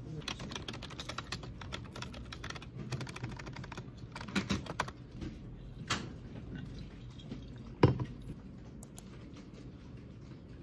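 Quick runs of light clicks and taps that thin out after about five seconds, with one sharper, louder click about eight seconds in.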